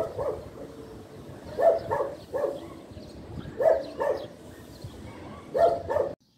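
A dog barking in short runs of two to four barks, about every two seconds.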